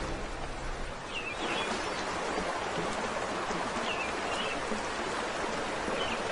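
Steady rush of flowing river water, with a few short bird chirps over it.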